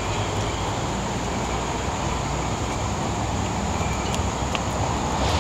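Steady low rumble of outdoor background noise, with a faint steady high whine above it.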